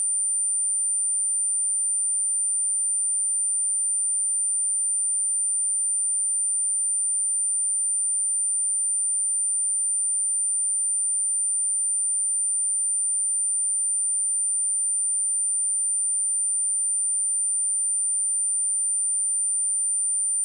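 A steady, unbroken high-pitched sine-wave test tone at 9102 Hz, a single pure note. It is played to vibrate water and dust out of a speaker.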